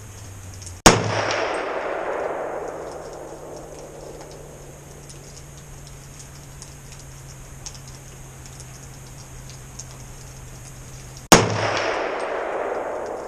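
Two rifle shots about ten seconds apart from an AR-style pistol chambered in 300 Blackout with a 10.5-inch barrel. Each is a sharp crack followed by an echo fading over a couple of seconds, over a faint steady low hum.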